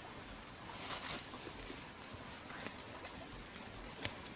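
Open wood campfire burning: a low steady hiss with a few faint crackles and pops, and a brief louder rush of hiss about a second in.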